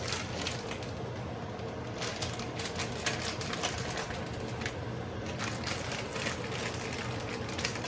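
Seasoning shaken out of a small plastic bag over a pot: a quick, irregular rattling and crinkling over a steady low hum.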